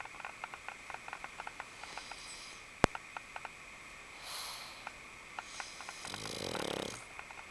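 Pug snoring: noisy breaths about every two seconds, the last a longer rattling snore. Faint small ticks run throughout, and a sharp click comes near the middle.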